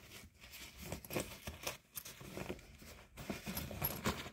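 Irregular rustling, light scraping and small clicks and knocks of things being handled and moved about, as someone rummages for an item.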